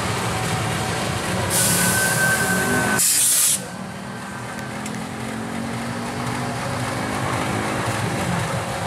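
CC 201 (GE U18C) diesel-electric locomotive running, with a loud hiss of air venting from its brakes as it comes to a stop. The hiss starts about a second and a half in, grows louder, then cuts off abruptly; after it the engine idles more quietly and steadily.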